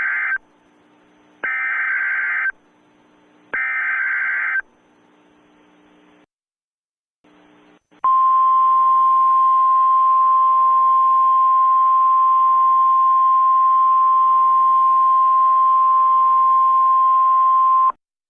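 NOAA Weather Radio alert signal: three short bursts of SAME header data tones about two seconds apart, then after a brief pause the single steady 1050 Hz warning alarm tone held for about ten seconds. This is the signal that an alert message is about to be broadcast.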